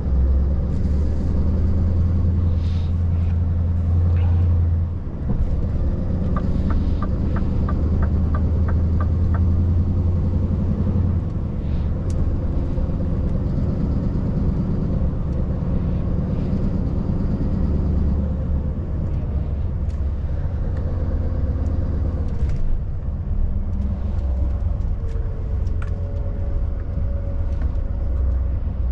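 Scania S770's V8 diesel engine running steadily under way, a deep low rumble. About six seconds in there is a run of evenly spaced ticks lasting about three seconds.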